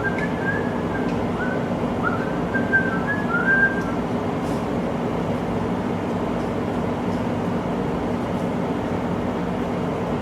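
Steady background hum, with a few short whistled notes, some sliding in pitch, in the first four seconds.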